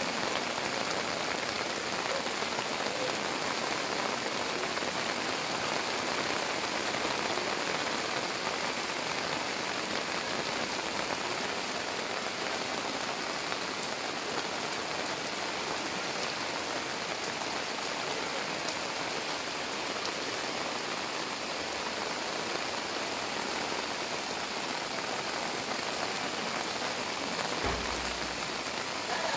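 Heavy rain falling steadily onto a flooded street, an even dense hiss, with one brief low thud near the end.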